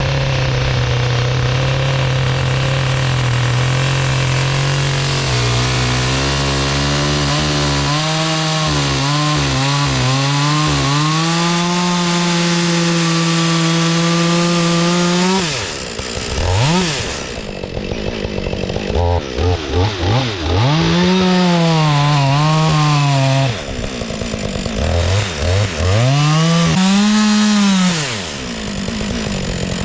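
Chainsaw cutting a slot into a log. Its engine pitch climbs steadily over the first half, then drops and rises again several times as the throttle is let off and opened.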